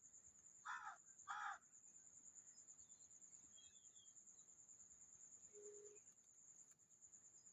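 A bird gives two harsh calls about half a second apart over a steady high insect trill.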